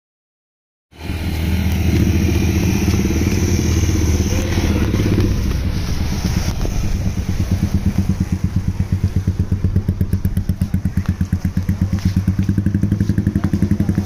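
Engines of a coach bus and motorcycles running close by, starting abruptly about a second in. From about halfway the sound settles into a fast, even throb.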